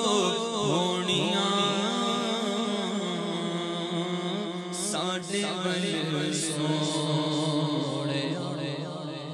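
A man singing a Punjabi naat solo into a microphone, in long drawn-out melodic lines over a steady low drone.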